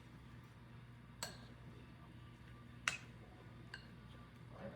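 A few light clicks of a utensil against a pan or bowl, three sharp taps spaced a second or two apart, over a faint low steady hum.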